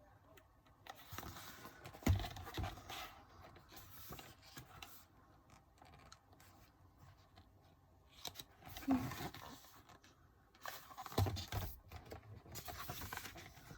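Photobook pages being turned and handled: paper rustling and scraping, with a few soft thumps.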